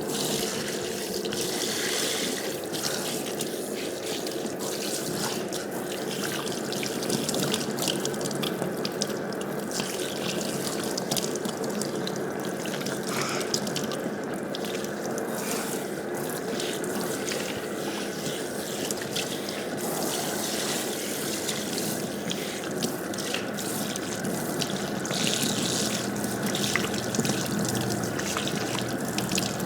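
Water running steadily from a tap into a sink, with many small splashes and drips.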